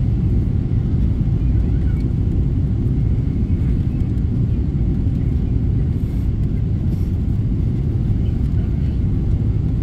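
Steady low rumble inside the cabin of a Boeing 777-300ER on final approach: the GE90-115B engines and airflow heard from a window seat beside the wing.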